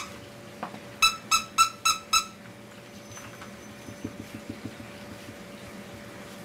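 Five short, high squeaks in quick succession, about a second in, amid puppies at play, after a sharp click at the very start. A few soft low grunts follow about four seconds in, over a faint steady hum.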